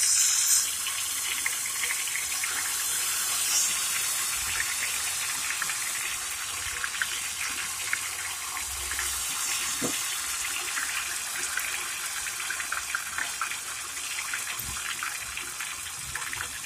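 Hot desi ghee sizzling and crackling steadily as ghevar batter is poured into it in a thin stream and fries into a frothy mass.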